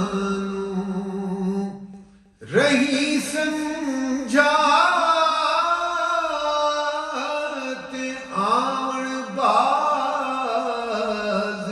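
A man sings a devotional naat solo, holding long, ornamented, wavering notes. He breaks off briefly for a breath about two seconds in and comes back in on a rising note.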